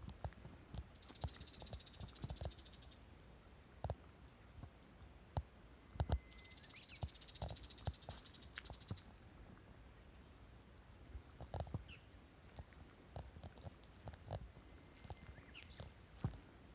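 Quiet outdoor ambience: a faint high buzzing trill comes twice, a couple of seconds each, among scattered light knocks and taps.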